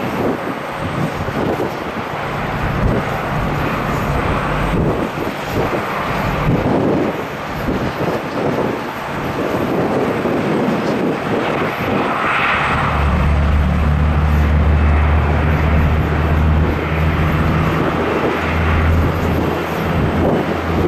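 Jet airliner engines running with a continuous rushing noise. About thirteen seconds in, a strong steady low drone sets in and holds.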